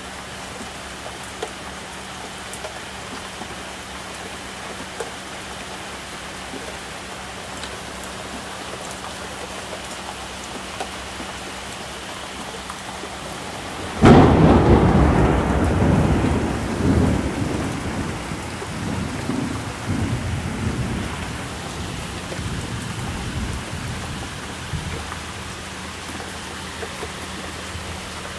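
Steady rain falling, then about halfway through a sudden loud thunderclap that rolls on in rumbles for several seconds before fading back under the rain.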